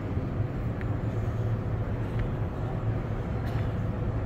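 Steady low hum and rumble of a large exhibition hall's background noise, with a few faint clicks.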